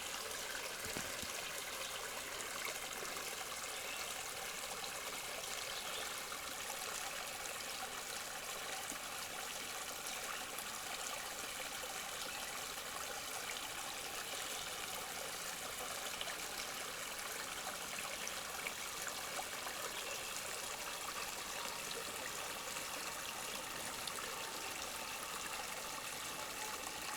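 Creek water running over rocks: a steady, even rush and trickle.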